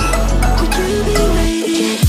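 Background music with no vocals: a melody of short pitched notes over a steady bass, the bass dropping out near the end.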